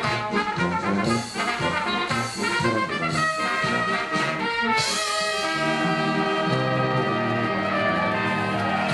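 Oompah brass music: trumpets and trombones play quick, bouncy notes, then hold a long sustained chord from about halfway through.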